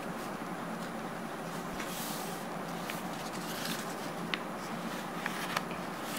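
A sheet of A4 paper being folded and creased by hand: soft paper rustles and a few small ticks as fingers press the folds, over a steady low hum.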